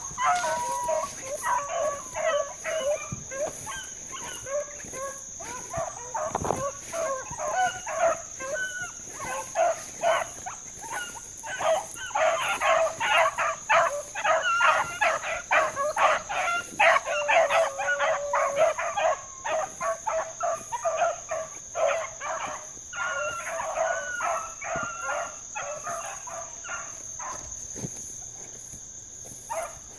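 A pack of hunting hounds baying on a track, many dogs' voices overlapping in quick short barks and drawn-out bawls. The chorus is busiest and loudest in the middle and thins out near the end.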